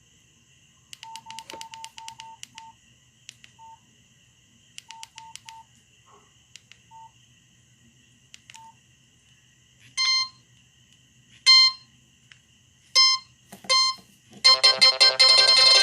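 Nokia 6085 keypad: button clicks, each with a short beep key tone, in a quick run of presses and then scattered single presses. Four brief, louder tones follow about a second or so apart. Near the end a polyphonic ringtone starts playing.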